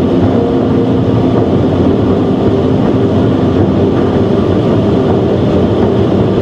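BMW 130i's straight-six engine running steadily at motorway speed, heard from inside the cabin over a constant loud rush of wind and tyre noise.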